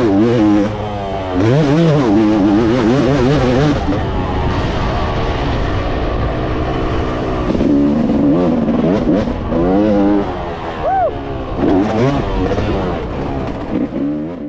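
Motocross dirt bike engine revving up and dropping back again and again as the throttle is opened and closed round the track, heard close up. It fades out near the end.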